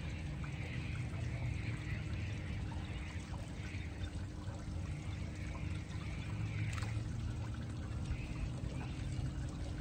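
Water trickling and splashing steadily over a low steady hum, with one sharp click about two-thirds of the way through.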